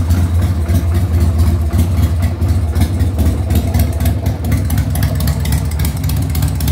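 1993 Harley-Davidson Sportster's air-cooled Evolution V-twin idling steadily through its chrome exhaust pipes.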